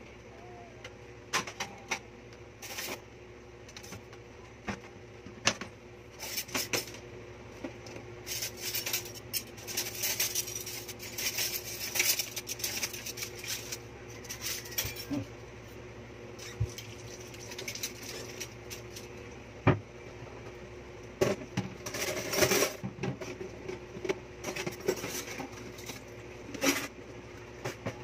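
Metal pots, a wok and lids knocking and clattering in a stainless steel sink during hand dishwashing, in irregular clanks with busier stretches of scrubbing and handling, over a faint steady hum.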